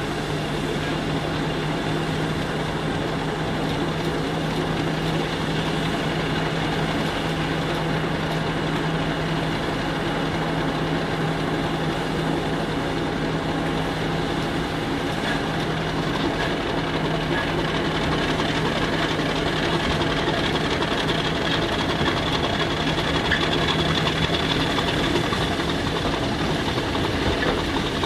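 Class 50 diesel locomotive's English Electric 16-cylinder engine running under power as it pulls away with its train, a steady low hum with a high whine that rises near the end, slowly getting louder.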